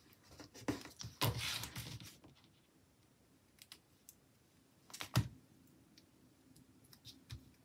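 Hands handling paper planner pages and stickers: a soft rustle of paper between one and two seconds in, and scattered small clicks and taps, the sharpest about five seconds in.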